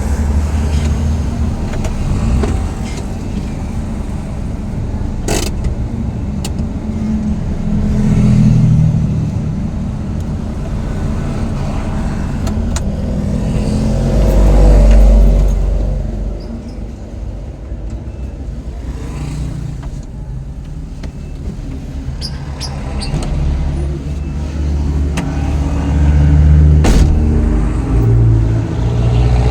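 Motor vehicle running, a low rumble that swells and eases several times, with a few scattered clicks and knocks.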